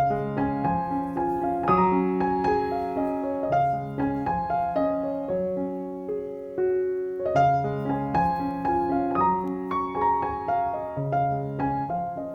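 Background piano music: a gentle melody over chords, notes struck and left to ring.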